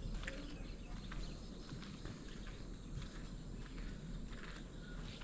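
Faint outdoor ambience: a low steady hiss with scattered light ticks and clicks.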